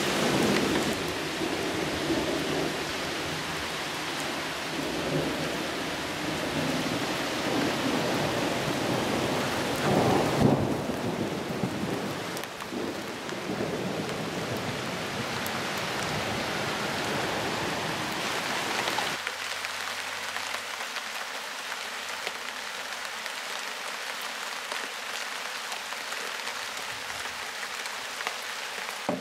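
Heavy rain pouring on wet ground and puddles, a steady hiss. A low rumble runs under it for the first two-thirds, loudest about ten seconds in, then drops away, leaving only the rain.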